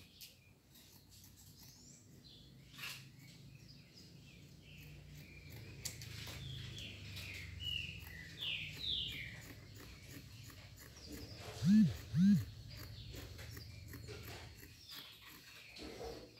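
Birds chirping in the background, with a run of quick falling chirps in the middle, over a steady low hum. About twelve seconds in come two short low calls that rise and fall in pitch, the loudest sounds. A few faint clicks of fabric scissors cutting cotton.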